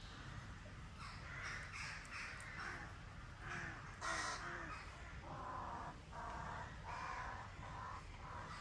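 Birds cawing over and over: a run of harsh, crow-like calls, with one louder call about four seconds in.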